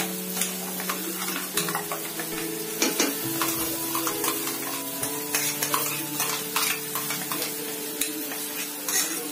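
A spoon stirring and scraping through a pan of sizzling mushroom masala, with frequent sharp clicks of the spoon against the pan.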